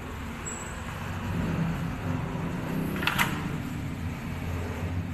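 Low steady rumble of a motor vehicle engine running, with one short sharp higher sound about three seconds in.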